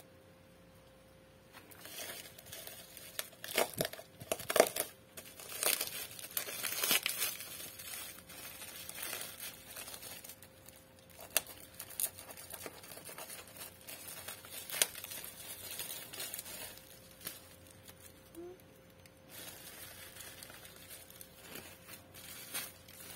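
Plastic bubble wrap crinkling and rustling in irregular bursts as it is pulled off a porcelain teapot, starting about a second and a half in and loudest over the next few seconds, with a few sharp clicks along the way. A faint steady hum lies underneath.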